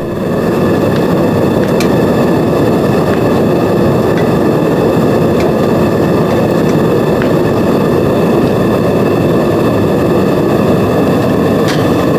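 Gas-fired metal-melting furnace burner running with a steady rushing noise. It swells up in the first second, and a few faint ticks sound over it.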